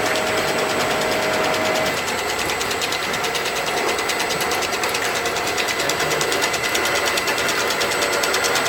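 3D printer running: its motors and extruder give a steady mechanical whir with a fast, even ticking and a high whine. A lower steady tone stops about two seconds in.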